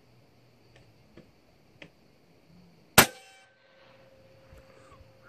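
A single shot from a Hatsan Hercules 6.35 mm (.25) PCP air rifle about three seconds in: a sharp crack followed by a short metallic ringing.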